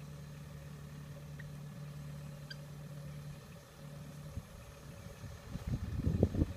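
Distant farm tractor engine running with a steady low hum that breaks up after about three and a half seconds; from about five and a half seconds a louder, irregular low rumble takes over.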